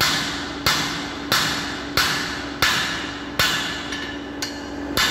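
Hammer blows forging hot metal on an anvil: about eight evenly paced strikes, roughly one every two-thirds of a second, each followed by a brief ring, over a steady low hum.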